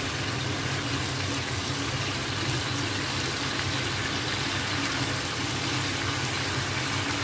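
Thick rendang sauce with chicken gizzards and tempeh sizzling and bubbling in a frying pan over low heat as a spatula stirs it: a steady hiss with a low hum underneath.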